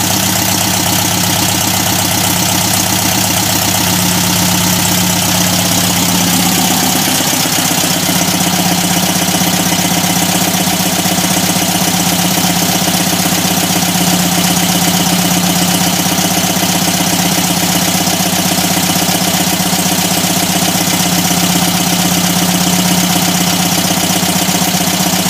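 1974 Volkswagen Super Beetle's air-cooled flat-four engine idling steadily, its idle note shifting slightly about seven seconds in.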